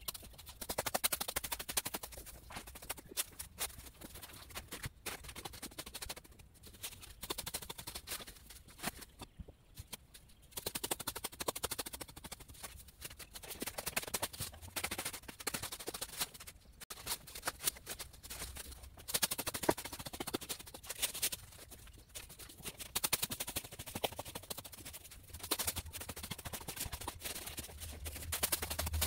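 A long-handled metal hoe chopping into soil and weeds: repeated sharp strikes with scraping, coming in irregular clusters.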